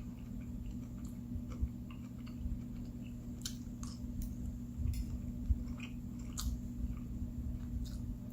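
Close-up chewing of a mouthful of food, with scattered wet mouth clicks and smacks.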